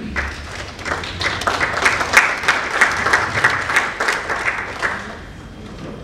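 Audience applauding: a dense patter of many hands clapping that swells about a second in and dies away about five seconds in.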